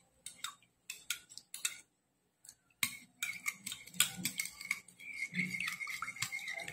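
Metal spoon stirring gelatin powder into water in a ceramic bowl, clinking and scraping against the sides in quick irregular clicks, with a short pause about two seconds in.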